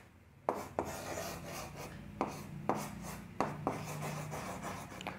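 Chalk on a chalkboard: a string of short scraping strokes and taps as lines, a spring coil and a block are drawn, starting about half a second in.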